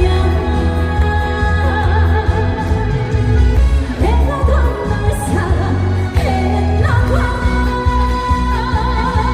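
A woman singing a Korean trot song live over an amplified backing track with heavy, steady bass.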